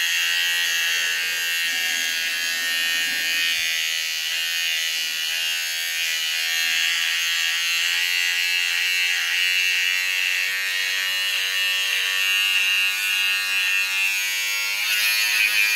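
Cordless electric beard trimmer buzzing steadily as it shaves beard hair on the chin and neck, its pitch wavering slightly.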